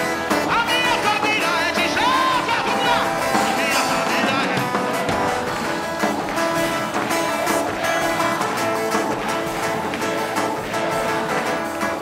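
Live worship music: strummed guitar over sustained chords. A singing voice slides up and down in pitch during the first few seconds.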